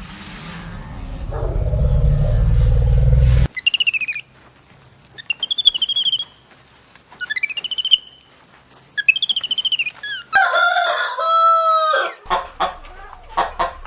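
A loud low rumbling animal sound that cuts off abruptly, then four short high chirps, a rooster crowing once with a falling tail, and hens clucking near the end.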